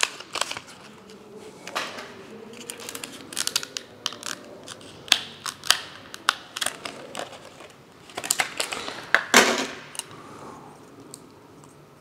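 Stiff plastic clamshell packaging of a DDR4 laptop RAM kit crackling and clicking as it is pried open and the modules taken out: a string of irregular sharp clicks and rustles, with a louder crackle about nine seconds in.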